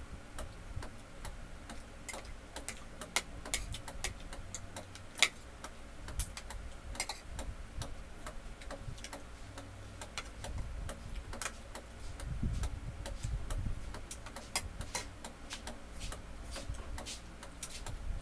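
Spoon and fork clicking and scraping on plates at irregular intervals while eating, with a few sharper clinks.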